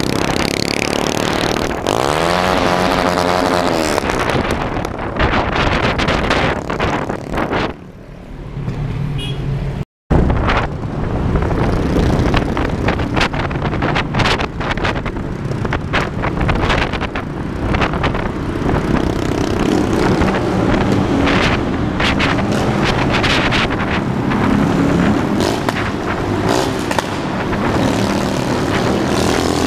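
Motorcycle engines running in a group ride, one revving up and back down about two to four seconds in. The sound drops out briefly at a cut about ten seconds in, then carries on as a steady mix of engine and road noise.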